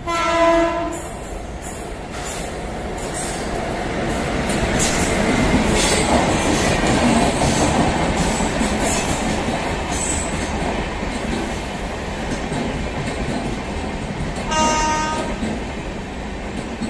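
Indian Railways WAP-7 electric locomotive sounding its air horn in a short blast at the start as it approaches with the Puri–Durg Express. Then the passenger coaches run past at speed, wheels clattering over the rail joints, loudest around the middle. A second short horn blast comes near the end.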